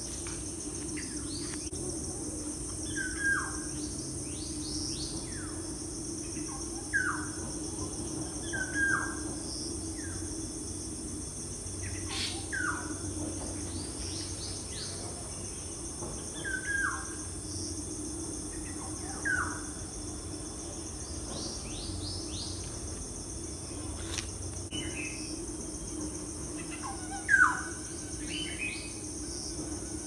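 Birds calling: short calls sliding downward in pitch, repeated every few seconds, the loudest near the end. Under them runs a steady high-pitched drone and a low hum.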